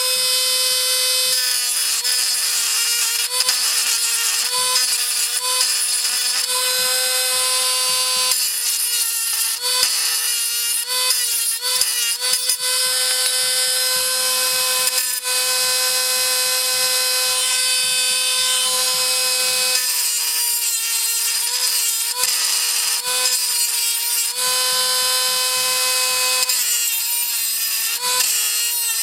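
Small high-speed rotary grinding tool running with a steady high whine, the pitch dipping briefly each time the bit bears down, grinding into the die-cast metal base of a toy car.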